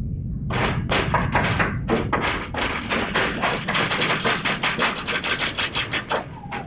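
A rapid, irregular series of sharp thuds and knocks, several a second, starting about half a second in and stopping just before the end.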